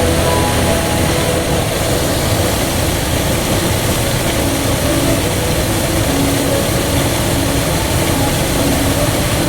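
Steady rush of falling water from a waterfall, close and loud. Faint music can be heard underneath.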